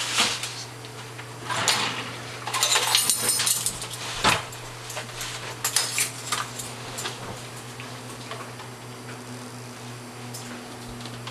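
Kitchen handling clatter: scattered knocks and clunks as a plastic gallon milk jug is taken from the refrigerator and handled beside a stand mixer, with a brief rustling, scraping burst about two and a half seconds in. A steady low hum runs underneath.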